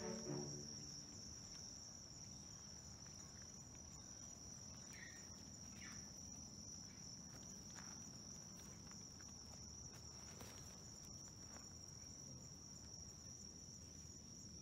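Faint, steady high-pitched chirring of crickets or other insects, with a few faint ticks.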